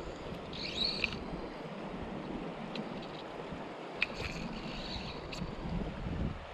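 Shallow river running over a stony bed, a steady rush of water. A few brief high whistles come about a second in and again around four seconds, with a sharp tick about four seconds in.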